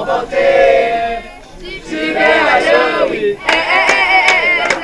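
A group of teenagers chanting and shouting together, joined about three and a half seconds in by fast, even hand claps in time with the chant.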